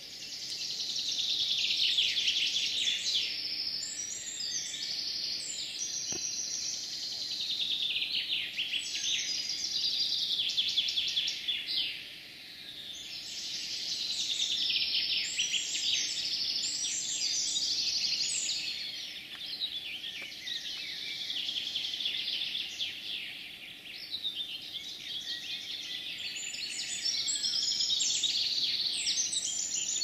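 Dawn chorus of several songbirds singing at once, their overlapping trilled phrases often falling in pitch and following one another every few seconds.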